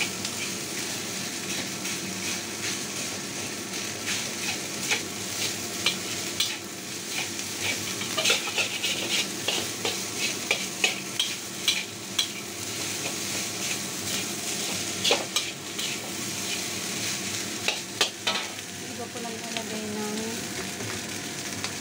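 Fried rice sizzling in a wok while a metal spatula stirs and scrapes it, with frequent sharp clicks of the spatula striking the pan over a steady hiss.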